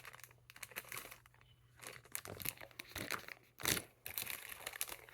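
Thin plastic packaging crinkling and crackling as minifigures are handled and unwrapped, with a louder crackle about three and a half seconds in.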